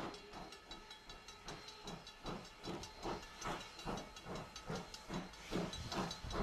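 Steam locomotive chuffing, its exhaust beating about three times a second over a steady hiss of steam, while a faint whistle tone dies away in the first two seconds.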